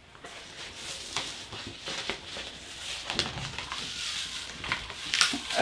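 Light rustling and a few soft taps as sticker sheets and a plastic cutting mat are handled.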